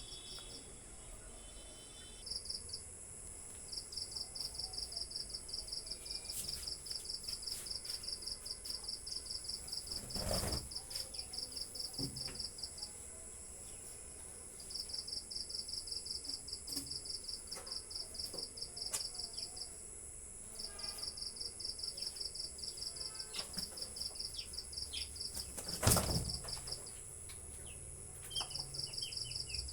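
Crickets trilling in fast pulsed trains of several seconds with short pauses, over a faint steady high whine. Two short knocks or handling bumps cut through, the louder one near the end, followed by a brief falling chirp.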